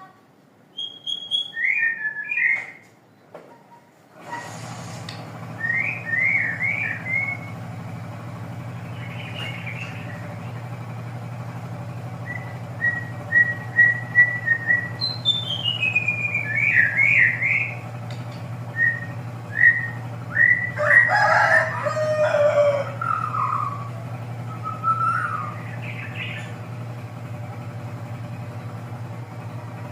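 Birds chirping and calling in short repeated phrases, with a louder, fuller call about 21 seconds in. A steady low hum starts abruptly about four seconds in and continues underneath.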